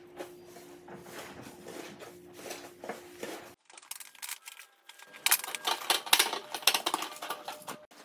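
Hands squeezing and working a mass of red fluffy slime, with soft squishing strokes about twice a second. After a short pause, slime is scraped and pressed against a plate with dense crackling and popping, the loudest part near the end.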